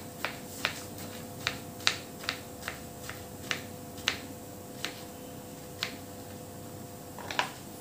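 Kitchen knife slicing ridge gourd into rounds on a plastic cutting board: sharp taps of the blade hitting the board, about two a second, thinning out after about five seconds, with a couple more near the end.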